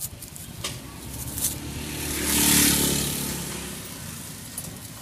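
A motor vehicle passing close by on the street: its engine sound swells to a peak about two and a half seconds in, then fades away.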